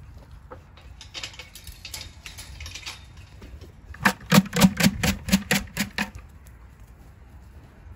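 Kiko goat kid giving a loud, trembling bleat about halfway through, pulsing roughly four or five times a second for about two seconds. Before it, faint rustling of footsteps through straw.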